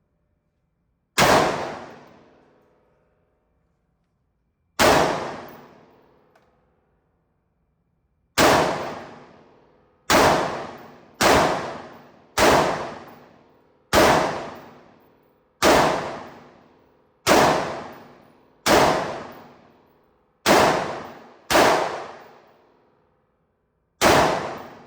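Semi-automatic AR-15 rifle fired thirteen times, one shot at a time at an uneven pace of one every one to three and a half seconds, each shot ringing out for about a second.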